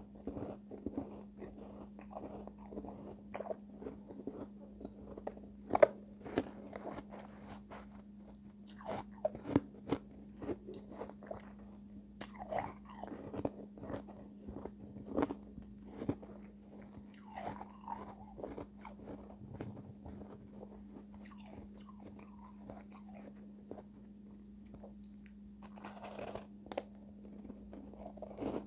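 Refrozen shave ice being bitten and chewed close to the microphone: irregular crisp crunches, the loudest about six seconds in, with a couple of quieter stretches of chewing between bites.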